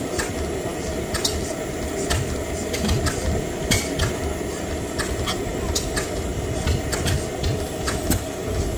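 Vintage stationary engines running, a continuous mechanical clatter with irregular clicks and knocks.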